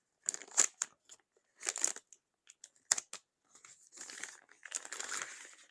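A thick black bag being handled and opened: short bursts of crinkling and rustling with a few sharp clicks, then a longer spell of rustling about four seconds in.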